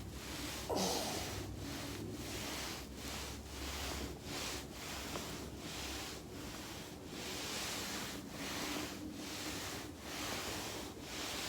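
A body rolling back and forth on a foam roller: a steady rubbing and rustling hiss that swells and dips at an even, quick rhythm, with one louder rub about a second in.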